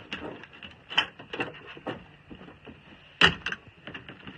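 Hound going into a wooden dog box: a string of knocks and clicks on the wood, then a sharp knock about three seconds in as the box door is shut and latched.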